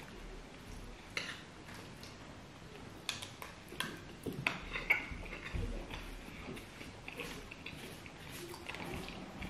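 Metal forks scraping and clinking against ceramic plates while scooping food, heard as scattered light clicks and scrapes.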